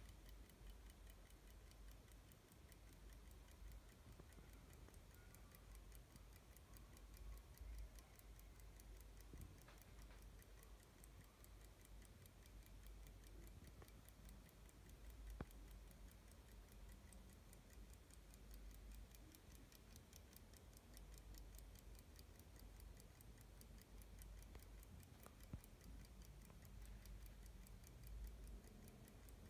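Lorenz Static desk clock ticking faintly, a fast, even run of light ticks several times a second.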